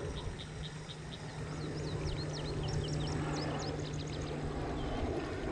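Wild birds singing: a quick series of short high pips, then a run of fast whistled notes sliding up and down, over a steady low drone and a rushing background noise.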